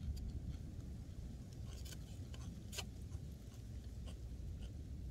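A person chewing a mouthful of chow mein, with soft mouth clicks here and there, over a steady low rumble.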